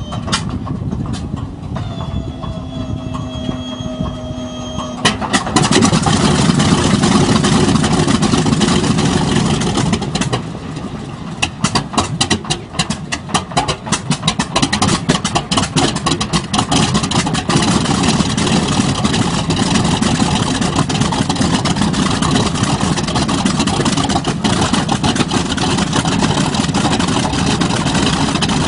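Start-up of a B-25 Mitchell's Wright R-2600 Cyclone twin-row radial engine: a starter whine for the first few seconds, then the engine turns over and fires about five seconds in, coughing and popping unevenly while it catches and puffs smoke, before it smooths into a steady idle for the last ten seconds or so.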